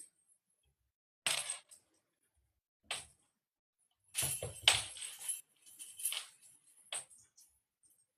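A cat toy rattling and jingling in short, irregular bursts as it is batted about, about five bursts with silent gaps between them.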